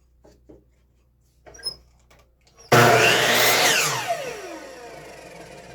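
A few light knocks of wood being handled, then about two and a half seconds in a power saw starts abruptly and cuts through a wooden fence picket; its motor whine rises briefly and then falls steadily as the blade winds down.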